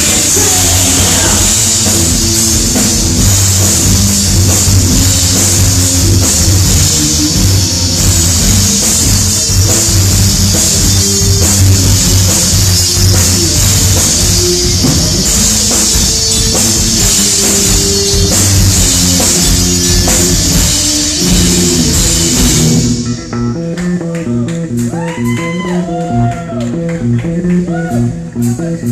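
Live metal band playing: distorted electric guitars, bass and drums with heavy cymbals. About 23 seconds in, the drums and cymbals drop out, leaving guitar with bending notes over the bass.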